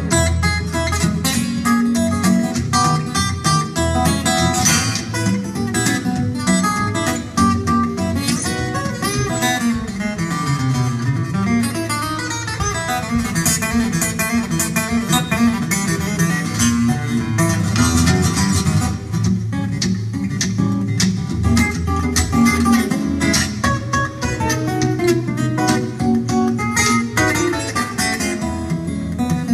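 Solo acoustic guitar played live, an instrumental ragtime passage fingerpicked with a bass line moving under a melody.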